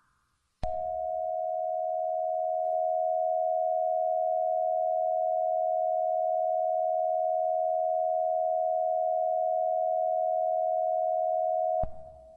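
A steady electronic alert tone at one mid pitch, with a faint higher tone above it. It starts with a click just under a second in, holds for about eleven seconds, and cuts off with a click near the end.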